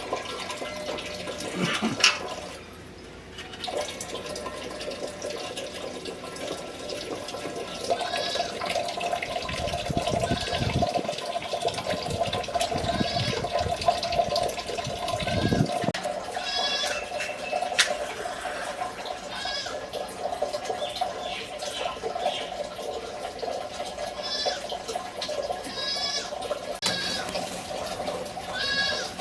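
Water pouring and splashing, with goats bleating again and again in short calls.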